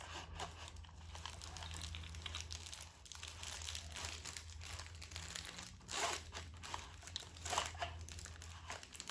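Nylon pull rope winding back onto a lawnmower's recoil starter pulley under its spring, with gloved hands rubbing and clicking on the plastic starter housing; a couple of sharper clicks come in the second half.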